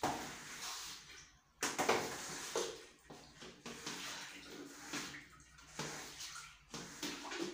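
Wet cloth wiping and scrubbing ceramic wall tiles: a run of uneven swishes, roughly one a second.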